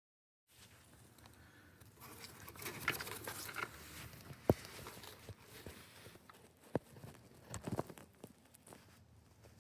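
Faint rustling and crinkling handling noise, with two sharp clicks about four and a half and seven seconds in.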